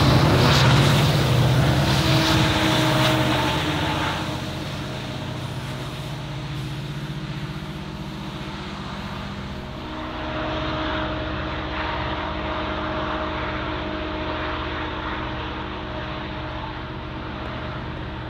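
Diesel locomotive engines of a Norfolk Southern freight train running with a steady drone. The drone is loudest for the first few seconds, then eases to a lower, steady level and swells slightly again about ten seconds in.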